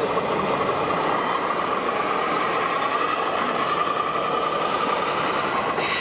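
Radio-controlled scale model construction machines running: a steady electric-motor whine that rises slightly about two seconds in, over the constant din of the exhibition hall.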